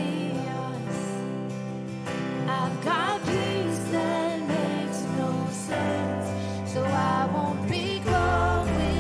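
Live worship band: a woman sings a slow melody over sustained keyboard chords, and an electric bass guitar comes in with strong low notes near the end.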